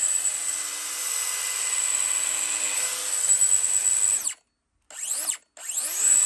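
DeWalt DCS438 cordless brushless 3-inch cut-off tool running free with a steady high whine, its disc spinning unloaded. About four seconds in the trigger is released and the electronic brake stops the disc almost at once; then the tool is blipped twice, each short burst rising in pitch and stopping quickly.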